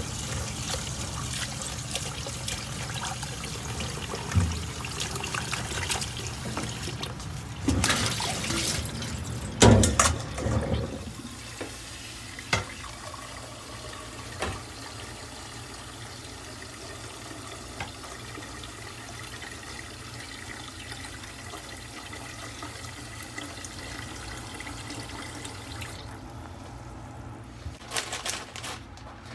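Kitchen tap running into a stainless steel sink, water splashing over fish bones in a metal mesh strainer and then filling a steel pot. A few loud clatters come about 8 and 10 seconds in, and the running water stops near the end.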